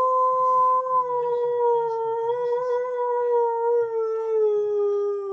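Husky howling: one long, unbroken howl whose pitch slowly sinks.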